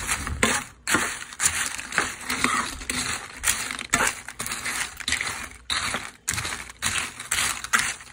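Tortilla chips being stirred into egg in a frying pan with a metal spoon for migas. The chips crunch and rustle in repeated strokes, about two a second.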